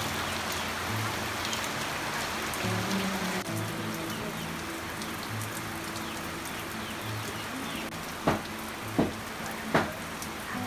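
Steady rain falling on leaves and wet ground, with soft background music of slow low notes underneath; three short sharp sounds close together near the end.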